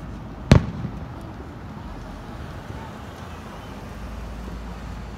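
A single aerial firework shell bursting, one loud sharp bang about half a second in with a short echo, then a steady quieter background.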